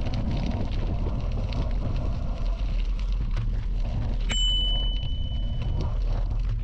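Bicycle rolling on a gravel path: a steady low rumble of tyres and wind with small crackles of gravel. About four seconds in, a bicycle bell dings once and rings on for about a second and a half.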